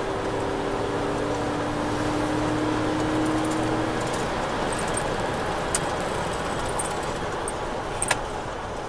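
Road and engine noise of a moving police patrol car, heard from inside the cabin. The engine note rises slowly over the first few seconds, and there are two small clicks in the second half.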